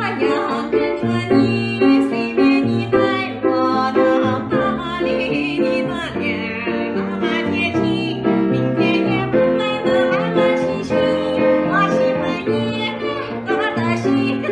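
Background music: a melody of short, steady notes over a low bass line.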